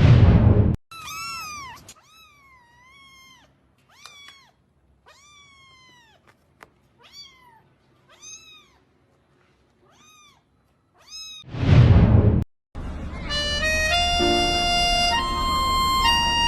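A cat, most likely a kitten by the high pitch, meowing about ten times in short, rising-then-falling calls. A loud whoosh comes just before the meows and another near the end, followed by music with held notes.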